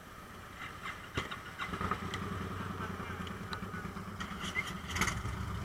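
A motorcycle engine starting about a second and a half in, then idling steadily, with a few sharp clicks and knocks over it.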